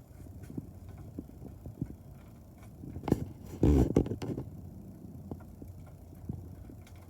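Hands handling the parts of a honeycomb shade's headrail and rod, giving scattered small clicks and knocks. A loud, low bump comes about halfway through.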